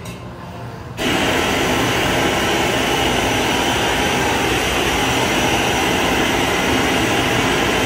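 Glassblower's gas bench torch opened up about a second in, its flame giving a loud, steady rushing hiss as it heats the glass on the blowpipe.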